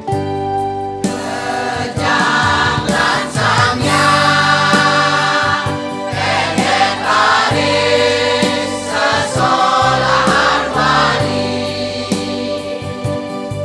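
Mixed choir of older men and women singing a Balinese folk song in unison over sustained keyboard chords. The voices come in about a second in and drop out near the end, leaving the keyboard holding its chords.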